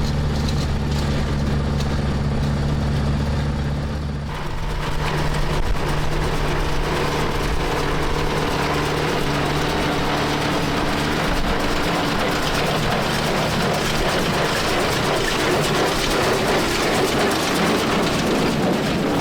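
Tractor engine running steadily; about four seconds in the sound changes abruptly to a busier, noisier mechanical running, as of the hay baler machinery working.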